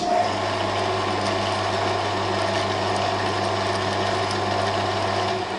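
TV-4 benchtop lathe starting up at once and running steadily, its motor and gear train turning with the feed engaged to the lead screw for cutting a 1.25 mm pitch thread. The low hum stops shortly before the end.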